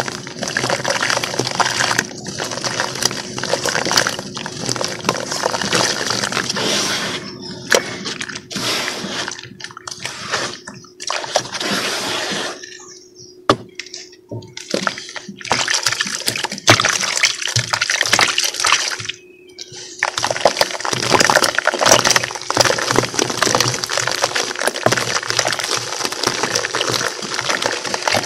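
Hands crushing and crumbling soaked lumps of cement in a tub of water: sloshing and splashing mixed with the gritty crumble of breaking chunks, with a couple of short quieter gaps around the middle.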